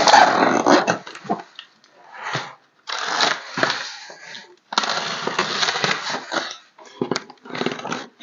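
Cardboard box being handled and opened: several uneven bursts of scraping and rustling with short pauses between them.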